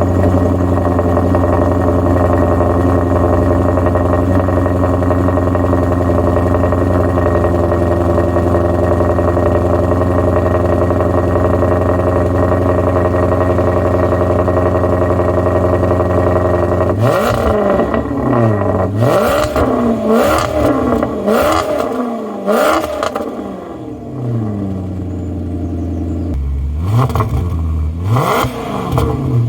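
Maserati Quattroporte 4.2-litre V8 running just after a cold start: a steady idle for over half the time. It is then blipped in a series of quick revs, each rising and falling, settles back to idle briefly, and is revved again near the end.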